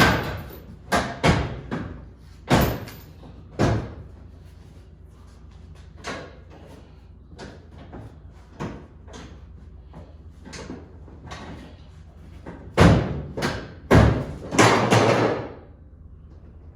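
Irregular knocks and thumps of a bucket seat and its mounting hardware being worked into an off-road buggy's frame. There is a cluster of loud hits at the start, lighter taps in the middle, and a second loud cluster near the end.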